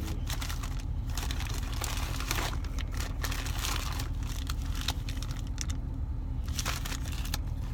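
Plastic soft-bait packages crinkling and rustling as they are handled and sorted through, over a steady low hum.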